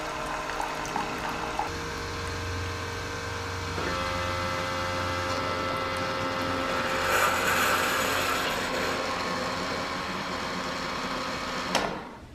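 Single-serve pod coffee maker brewing: its pump runs with a steady hum while coffee streams into a glass mug. There is a louder hiss for a couple of seconds midway, and the machine cuts off suddenly near the end as the brew finishes.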